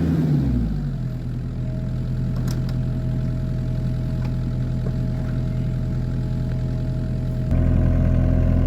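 Mini excavator's diesel engine coming down from higher revs to a steady idle within the first second, then running evenly. About a second before the end it suddenly gets louder and heavier.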